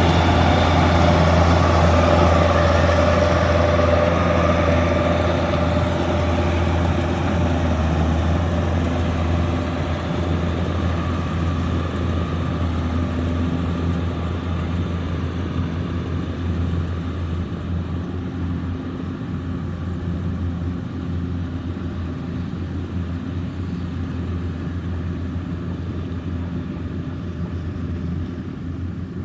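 Kubota DC-105X combine harvester's diesel engine running steadily as it cuts rice, with a deep even hum and mechanical clatter that grow gradually fainter.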